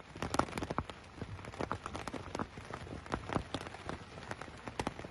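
Rain falling steadily, with many individual drops pattering sharply on a nearby surface.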